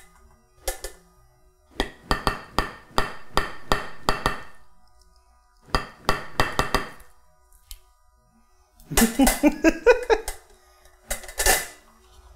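Stainless steel egg-poacher cups tapped on a ceramic plate and knocking against the metal poaching pan as the poached eggs are turned out. A run of quick sharp taps comes about two seconds in, another short run in the middle, then a busier clatter of clinks with some ringing near the end.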